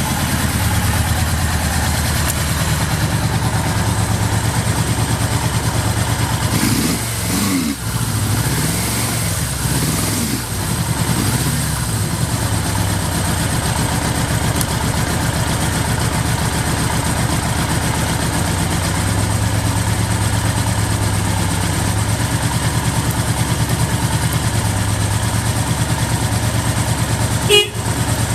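Suzuki GS750G's air-cooled inline-four engine running at idle, with the throttle blipped a few times so the revs rise and fall about a third of the way through. The seller calls it free of odd noises.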